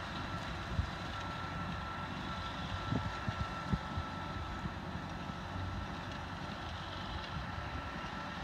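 John Deere 8850's turbocharged V8 diesel running steadily under load, heard from a distance as the tractor pulls a ten-furrow mouldboard plough, with a steady high whine over the engine note. Wind buffets the microphone a few times around three to four seconds in.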